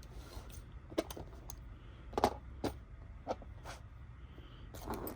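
Scattered light clicks and taps, about half a dozen spread over a few seconds, from small metal lock parts and tools being handled on a work surface.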